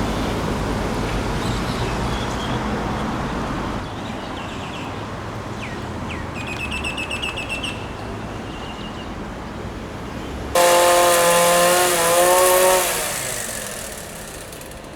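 Street traffic with engines running, then a loud vehicle horn sounds for about two seconds, wavering slightly in pitch, starting about ten seconds in. A brief run of rapid high chirps comes a few seconds before it.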